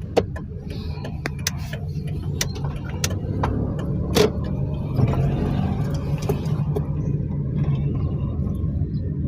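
Perodua Axia's 1.0-litre three-cylinder engine running with a steady low drone, broken by irregular sharp clicks, with a loud knock about four seconds in.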